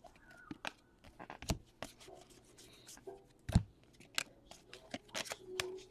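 Trading cards being handled and flipped through by hand: light flicks, rubs and scrapes of card on card, with two sharper taps about one and a half and three and a half seconds in.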